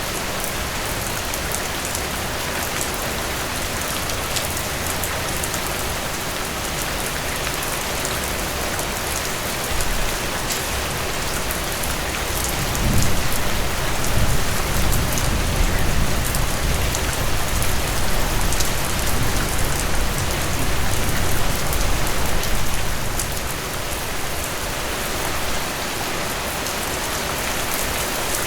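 Steady rain falling and pattering on a surface, an even hiss with fine drop ticks. About halfway through, a low rumble swells in and lasts around ten seconds before fading.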